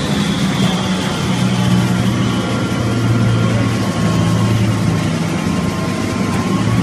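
A wood crushing and grinding line (rotor-type wood powder mill) running under load. It makes a steady loud drone with a strong low hum and thin high whining tones that slowly sink and rise in pitch, over an even rushing noise.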